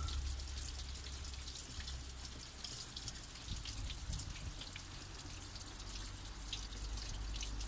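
Water from a hose trickling into a car's coolant expansion tank during a cooling-system flush, with many light scattered drips over a steady low hum.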